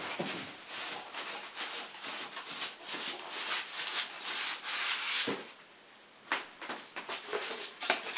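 Cardboard box and lid rubbing and rustling in quick, irregular scratchy strokes as the box is worked open by hand. A short lull about five seconds in, then a few separate short scrapes.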